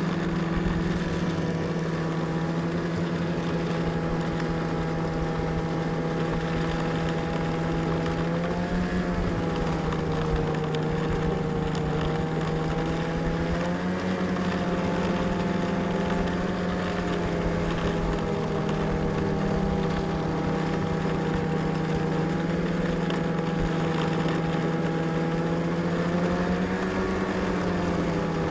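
Snowmobile engine running steadily, its pitch lifting slightly and settling back a few times.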